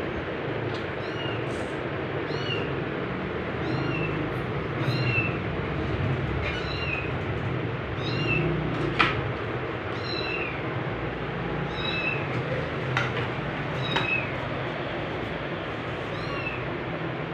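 A young kitten mewing over and over in short, high-pitched calls, about one a second, each call rising and falling in pitch. Under the calls runs a steady low hum, and two or three sharp taps come midway and later.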